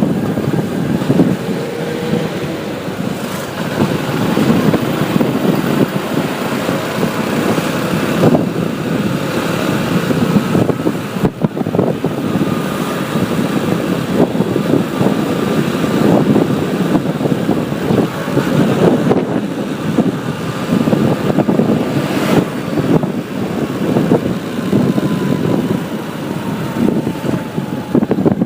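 Road traffic heard while riding a motorbike: a steady rush of engine, tyre and wind noise, with other vehicles' engines faintly rising and falling in pitch as they pass.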